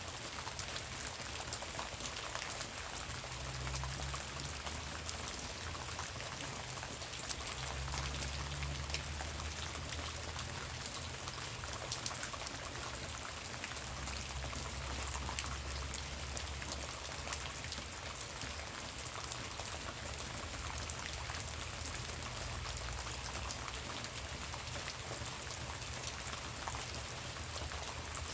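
Light rain falling steadily in woodland, with many small drops pattering and dripping. A low rumble comes and goes beneath it.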